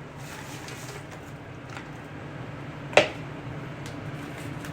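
A single short knock of cookware about three seconds in, over a steady low hum, as diced apples are added to a pot.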